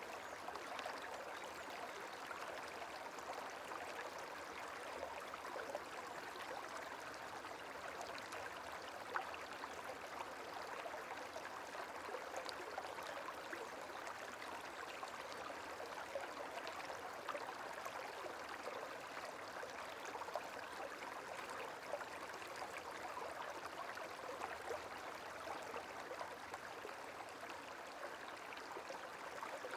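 Gently flowing water, steady and even, with small irregular ticks of trickling and splashing throughout.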